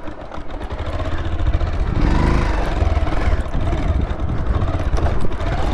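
Bajaj Pulsar 220's single-cylinder four-stroke engine running as the motorcycle is ridden slowly over rough grassy ground, heard from the rider's seat with a heavy, uneven low rumble.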